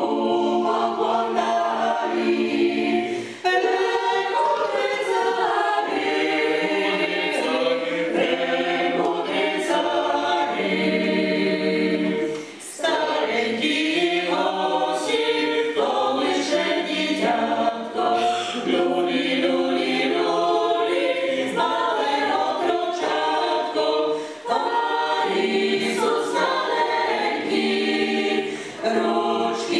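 Mixed choir of women's and a man's voices singing a Christmas carol a cappella, the phrases broken by short breaks for breath.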